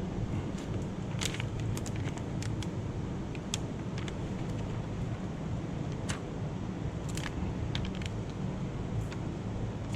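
A steady low rumble throughout, with a scattering of short, sharp light clicks and ticks.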